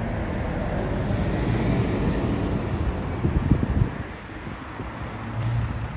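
Single-deck diesel bus driving past close by and pulling away, its engine and tyre rumble growing to a peak about three and a half seconds in and then fading. Wind buffets the microphone.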